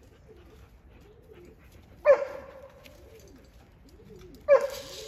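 Racing pigeons cooing softly and repeatedly, while a dog gives two loud, sharp barks, one about two seconds in and one near the end.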